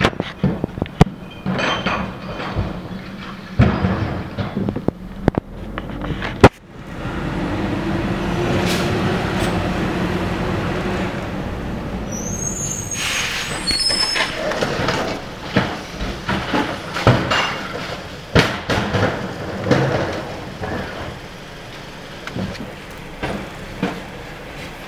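McNeilus rear-loader garbage truck idling while recycling carts are banged against its hopper, with sharp knocks, the loudest about six and a half seconds in. The packer then runs for about five seconds with a steady droning hum. High metal squeals follow, then a run of clattering knocks as recyclables are loaded.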